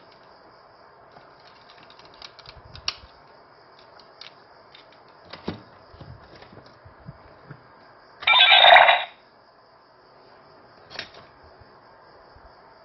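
Plastic clicks and knocks as summon keys are handled and slotted into an Auldey Armor Hero toy summoner belt. About eight seconds in comes one loud electronic sound effect, about a second long, from the toy's small speaker.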